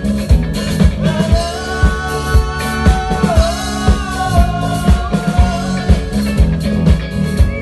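Live rock band playing an up-tempo funk-rock song, recorded on a phone: drum kit keeping a steady driving beat under bass and guitar. A long held melody note bends down and back up midway.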